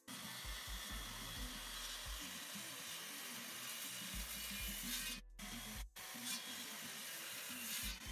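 Handheld circular saw cutting across a wooden rafter beam: a steady hissing cutting noise, broken twice briefly a little past halfway.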